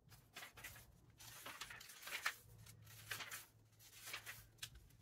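Magazine pages being turned by hand, a soft papery rustle in a run of short brushes.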